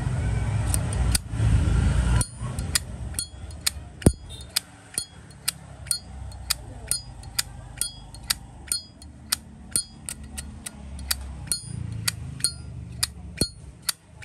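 A brass Zippo lighter's lid being flicked open and snapped shut over and over: sharp metallic clicks, about two a second, each with a brief ring. For the first two seconds a low engine rumble lies under them.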